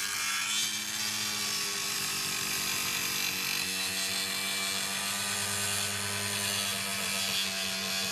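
Corded DeWalt angle grinder running with its abrasive disc grinding against metal: a steady motor hum under a continuous harsh hiss.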